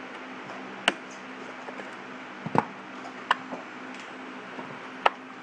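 Four sharp clicks and light knocks, spread out, from handling a self-balancing scooter's plastic wiring connector and cast-metal centre housing. A steady low hum runs under them.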